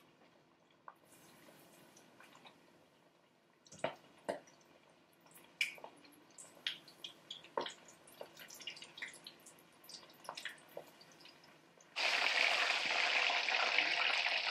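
Chicken drumettes deep-frying in hot oil: scattered light clicks and pops of tongs and spattering oil, then about twelve seconds in a loud, steady frying sizzle starts suddenly.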